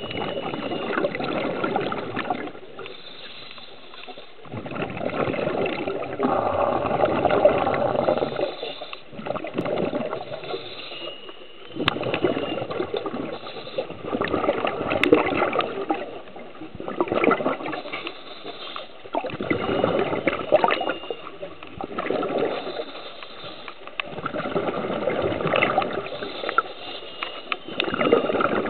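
Scuba regulator breathing recorded underwater: bursts of bubbling exhalation lasting a few seconds alternate with quieter, hissing inhales, breath after breath.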